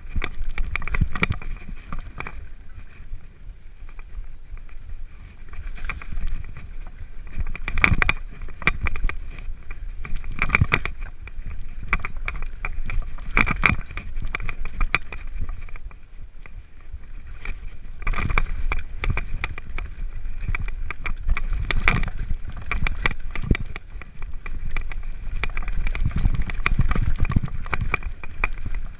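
Mountain bike descending a rocky dirt singletrack: the frame and parts rattle, with frequent sharp knocks and clatters as the wheels strike rocks, over a steady low rumble of tyres and air.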